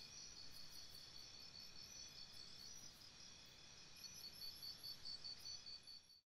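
Faint chirping of insects: a quick, steady run of short, high-pitched pulses over a low hiss, cutting off suddenly near the end.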